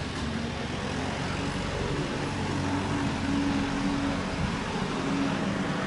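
Road traffic: a motor vehicle engine humming steadily over a general haze of traffic noise.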